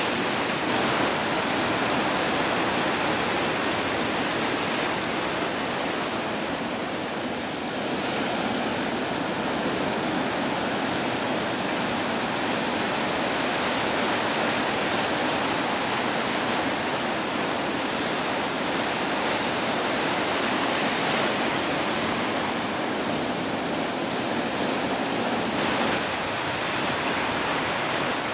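Ocean surf: waves breaking and white water rushing, a steady, even noise.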